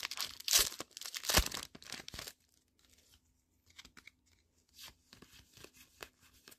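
Foil wrapper of a Pokémon card booster pack torn open and crinkled by hand, loud tearing and rustling for about two seconds. Then faint clicks as the cards are handled and slid apart.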